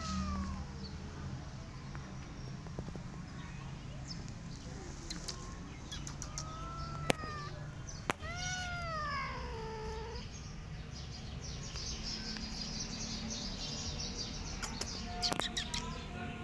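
Cats meowing: three meows, the longest about 8 seconds in, drawn out and sliding down in pitch. Two sharp clicks fall just before it.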